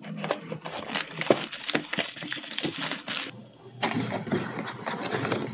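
Plastic shrink wrap being torn and crinkled off a cardboard box: a dense run of crackles for about three seconds. After a short pause, softer rustling and handling of the box follows.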